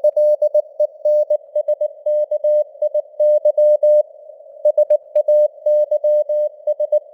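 Morse code (CW) at about 19 words per minute, keyed as a single steady tone in short dots and longer dashes over a faint hiss of simulated radio noise. There is a brief pause about four seconds in, a word gap.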